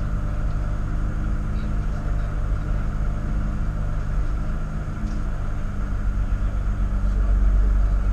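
A vehicle's engine running hard at speed on a race track, with road and wind noise. It holds steady, dips slightly about halfway and gets louder near the end.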